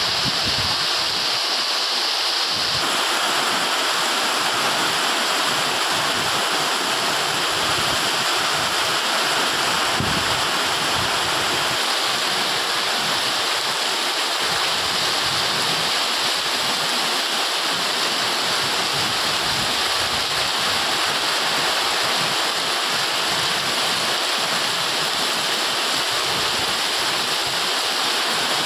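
Heavy rain pouring down in a steady, dense downpour.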